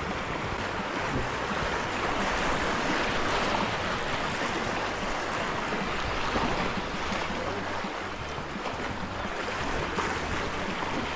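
Sea water sloshing steadily, with some wind rumbling on the microphone.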